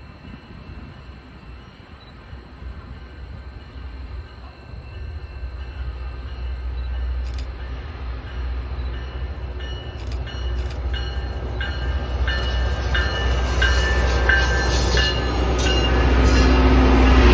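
Loram rail grinder train approaching: a low rumble that grows steadily louder, with wheel clicks and high metallic squealing coming in from about halfway and building toward the end.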